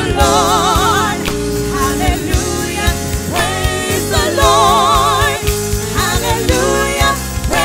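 Gospel worship song performed live: women's voices singing with heavy vibrato over a drum kit and keyboard.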